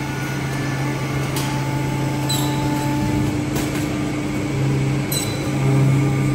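Holztek PRO-45A edge banding machine running in straight-edge mode, feeding panels through with a steady mechanical hum. A few sharp clicks come at irregular intervals over the hum.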